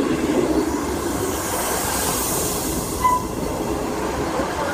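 East Midlands Trains diesel multiple unit, led by a Class 158, passing at close range: a steady rumble of wheels on the rails and running engines. A hiss swells about two seconds in, and a short high squeal comes about three seconds in.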